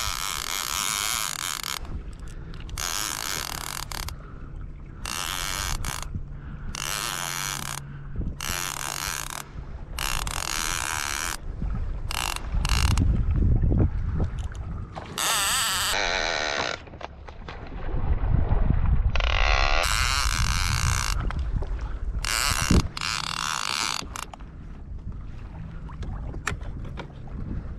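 Fishing reel's drag buzzing in a dozen or so separate bursts, each about a second long, as a hooked fish pulls line off against the drag. Wind rumbles on the microphone between the bursts.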